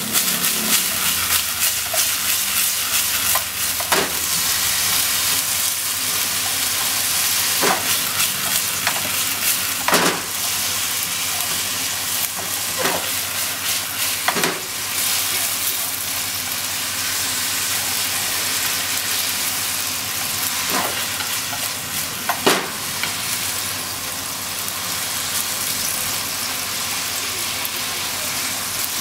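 Shimeji mushrooms sizzling in oil in a frying pan as they are stirred and tossed with a wooden spatula and chopsticks. A few sharp knocks of the utensils against the pan break the steady sizzle.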